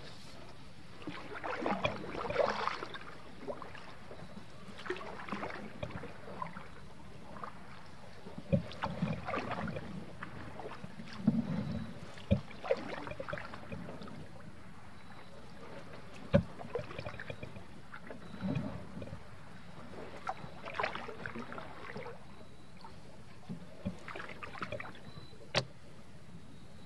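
Canoe paddle strokes splashing and swishing in the water every few seconds, with a few sharp knocks against the canoe.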